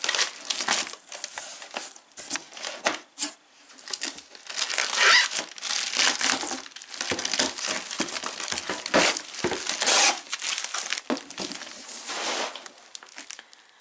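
Plastic packing wrap crinkling and rustling in irregular bursts as hands rummage in a cardboard box and lift out a wrapped item.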